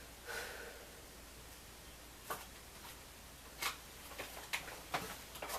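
Playing cards being handled on a table: about six soft clicks and taps, starting about two seconds in, as cards are drawn and laid down.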